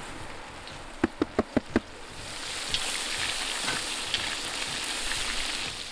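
Sliced fresh mushrooms dropped into hot oil in a kazan, sizzling loudly and steadily, the hiss fading near the end. Just before the sizzle there is a quick run of five knocks.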